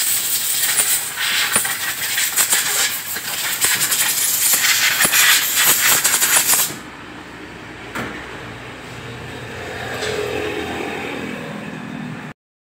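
A Honda CD 70's drive chain being scrubbed clean of caked mud: a loud, scratchy rasping that stops abruptly about seven seconds in, leaving quieter handling noise.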